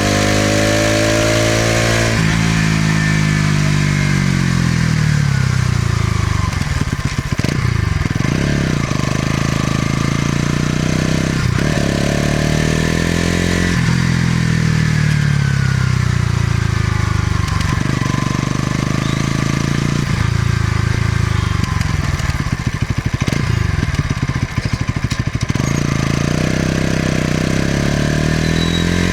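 Bajaj Pulsar NS200's single-cylinder engine and exhaust under way, its pitch rising as it accelerates and falling as it slows, several times over. In two stretches, about a quarter of the way in and again past the middle, the revs drop to a low, choppy beat.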